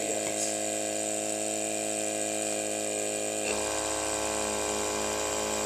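Small portable air compressor of a windshield chip-repair kit running with a steady hum, powering the injector that pulls a vacuum on the crack; its low hum changes about three and a half seconds in.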